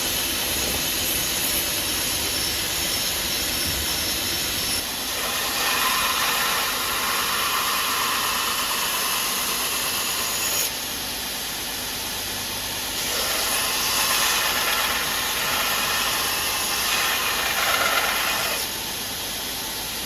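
Belt grinder running, with the steel knife blade pressed against the abrasive belt in two long grinding passes, each a louder hiss lasting about five seconds.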